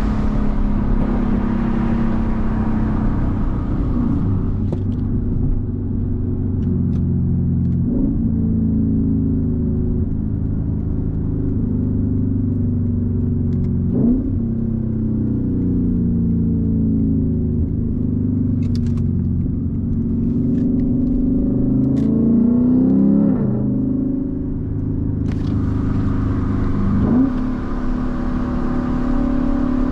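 Lexus IS-F's 5.0-litre V8 engine pulling hard and revving up and down through the gears. Its pitch climbs and falls, with sudden jumps at several gear changes.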